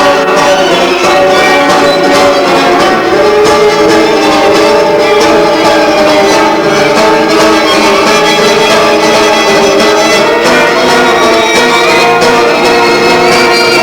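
A violin and an acoustic guitar playing together, the violin holding long sustained notes over the guitar.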